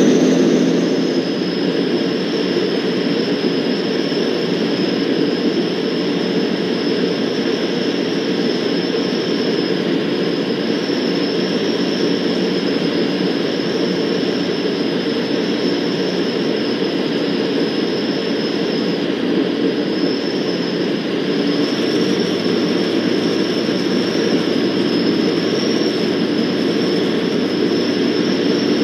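Van's RV-12's Rotax 912 flat-four engine and propeller droning steadily in the cockpit on approach to land, with a thin steady high whine over the airflow noise. The drone eases about a second in and firms up slightly past two-thirds through.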